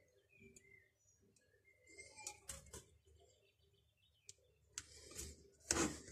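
Faint clicks and taps of fingers and a small screwdriver on a chainsaw's plastic housing while a rubber anti-vibration mount is fitted, the loudest knock a little before the end. A few short, high chirps come near the start.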